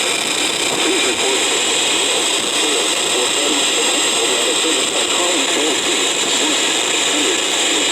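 Weather radio broadcast buried under loud, steady static hiss, with a talking voice faintly heard beneath the noise. The reception is being interfered with.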